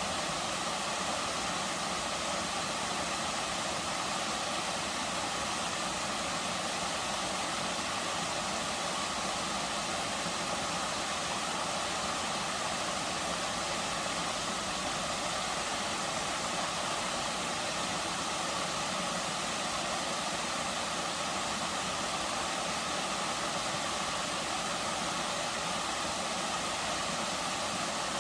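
Waterfall: water falling steadily into a pool, a constant even rush.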